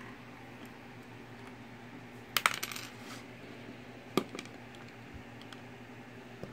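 Hard plastic Mega Bloks building pieces clicking and clattering against each other and the tabletop as they are handled: a quick rattling cluster about two and a half seconds in, then a single sharp click over a second later.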